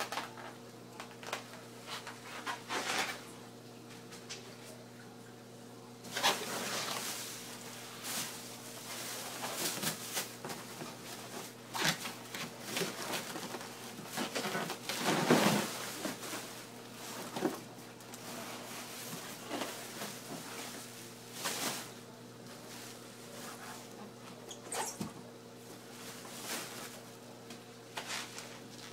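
Packaging and protein skimmer parts being handled and unpacked: irregular rustles, scrapes and clicks of cardboard and plastic, busiest about halfway through, over a steady low hum.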